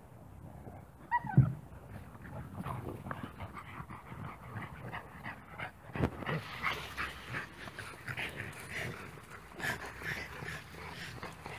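Dogs vocalizing: a short, sharp, high-pitched yelp about a second in, then a run of short whines and yips through the second half.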